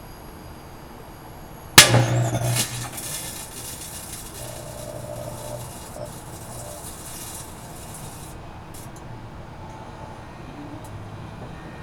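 A light bulb bursting with one sharp, loud crack inside a running microwave oven about two seconds in, followed by about a second of crackling, then the microwave's low steady hum.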